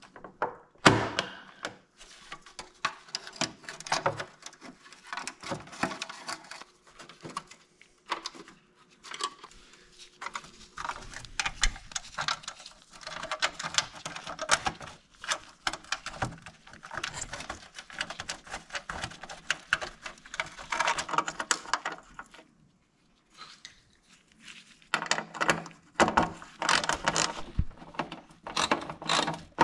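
Clicks, knocks and rustling of chrome trim and plastic covers being fitted by hand on a Honda Gold Wing GL1500's front end, with a ratchet wrench tightening a bolt in quick strokes near the end.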